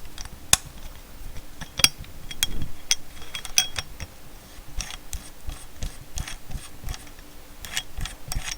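Irregular metallic clicks, small knocks and light scraping as a blade is fitted onto the blade mount of an oscillating multi-tool.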